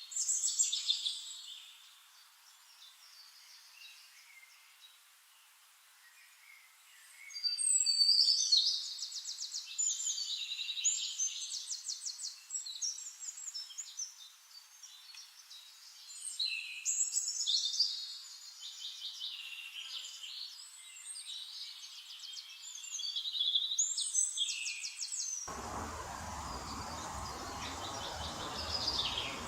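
Small songbirds chirping and singing rapid trills in high-pitched bursts every few seconds. Near the end, a steady rushing noise comes in underneath.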